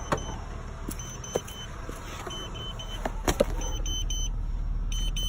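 Aftermarket TPMS monitor beeping in quick groups of three, a group about every second and a half: its low-tyre-pressure warning. Underneath is the steady hum of the idling car, with a few sharp clicks and knocks.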